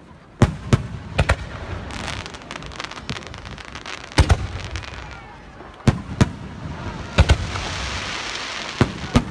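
Aerial firework shells bursting in the sky, about a dozen sharp bangs, often in quick pairs. Near the end a dense crackling fizz as glittering stars crackle after a burst.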